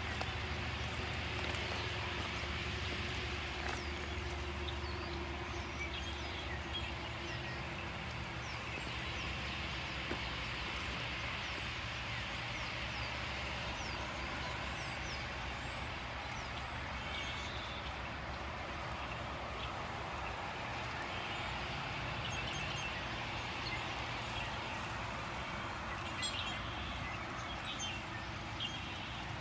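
A large murmuration flock of small birds calling all at once, a dense constant chatter that swells and eases, with a few sharper chirps standing out near the end, over a steady low rumble.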